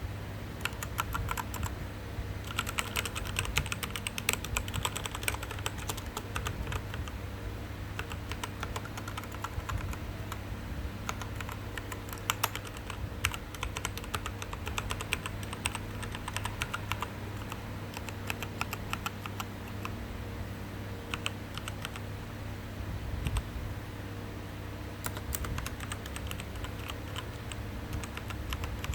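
Typing on an Azio mechanical keyboard with K-Switch key switches: fast, irregular keystroke clicks in runs with brief pauses, over a steady low hum.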